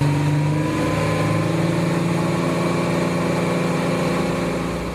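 Motorboat engine running at a steady speed, a constant drone that fades out near the end.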